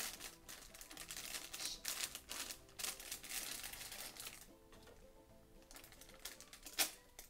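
Plastic film wrapper of a small cracker packet crinkling and crackling as it is twisted and pulled at by hand, a packet that is hard to open, with a sharp crack near the end. Faint music underneath.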